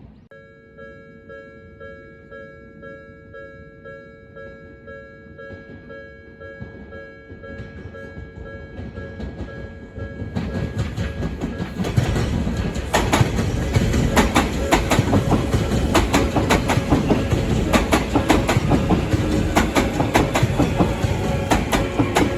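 Japanese level-crossing warning bell ringing in a steady repeating ding. About ten seconds in a train arrives and runs through the crossing, its wheels clattering rhythmically over the rail joints while the bell keeps ringing.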